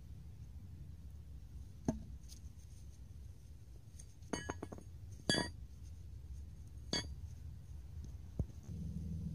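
Rusty steel brake caliper bracket clinking and knocking as it is handled and set down on asphalt: a few separate sharp ringing clinks, the loudest about five seconds in, over a low steady rumble.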